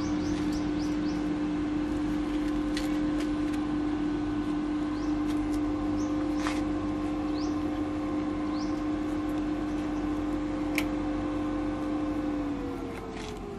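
Small inverter welding machine humming steadily with its cooling fan, then winding down in pitch near the end. A few short bird chirps and faint clicks sound over it.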